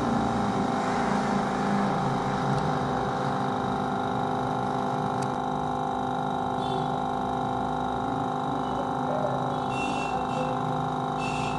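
Hot-air SMD rework station blowing, a steady hum with several constant tones, used to heat a faulty memory card. A few faint short high chirps come near the end.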